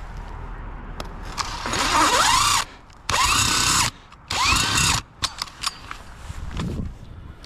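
Power drill running in three short bursts, each a whine that rises in pitch as the motor spins up and then holds, typical of driving screws.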